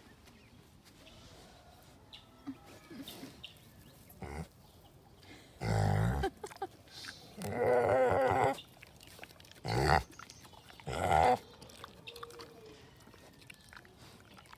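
A pot-bellied pig grunting at close range: four grunts, the first about six seconds in and the second drawn out longer, with faint rustling and snuffling between them.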